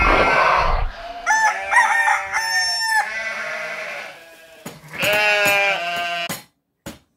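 A rooster crowing twice, each crow a drawn-out call of a second or two, after a short loud burst of noise at the very start.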